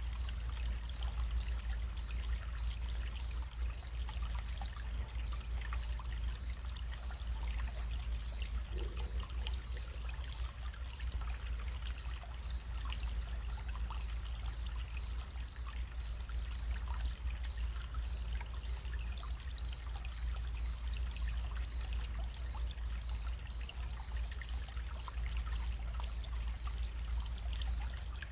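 Small running stream trickling steadily, with many small splashes and a steady low rumble underneath.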